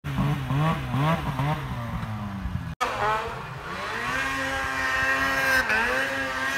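Two-stroke snowmobile engine revving in deep snow: quick repeated throttle blips in the first few seconds. After a brief cut, an engine winds up, holds a high steady rev for a couple of seconds, then drops back near the end.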